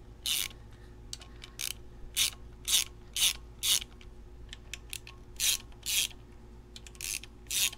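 Hand ratchet wrench clicking in short bursts as it is swung back and forth, backing out the 10 mm bolts that hold the timing chain guides on an engine block. There are about a dozen strokes, mostly half a second apart, with a short pause midway.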